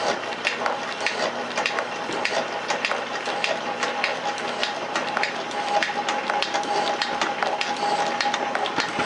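Metal shaper running, its ram driving the cutting tool back and forth across the port face of a hard cast steam engine cylinder: a steady mechanical clatter full of sharp ticks over a steady whine.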